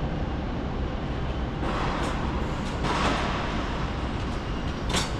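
Steady low rumble of hangar background noise, with two brief hissing swells in the middle and a sharp click near the end.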